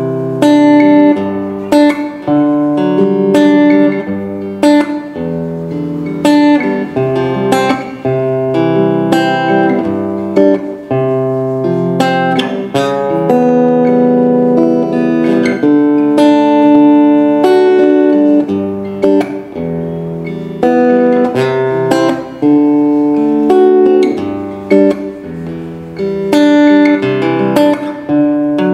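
Donner Hush I silent travel guitar played fingerstyle: plucked chords and single-note melody lines, each note ringing on, with no pause.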